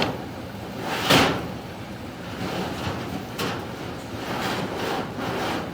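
Scraping and sliding noises, with two louder swishes about a second in and about three and a half seconds in: a duct inspection camera's cable rubbing along sheet metal ductwork as it is pushed through.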